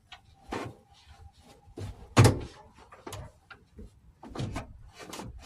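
Irregular knocks and clunks from working on the inside of a Jeep Cherokee XJ front door while fitting the window glass. The loudest clunk comes a little after two seconds in.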